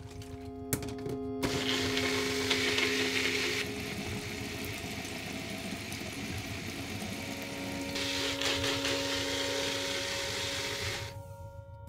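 Single-serve countertop blender running in two stretches, about a second and a half in and again near the end, whirring as it blends a smoothie. Soft background music with long held notes plays underneath.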